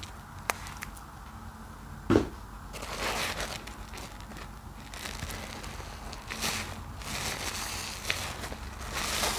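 Hands squeezing and kneading soap-soaked kitchen sponges in thick lather: wet squelching and fine crackling of the foam, with one loud squelch about two seconds in and several longer squishy swells as the sponges are pressed.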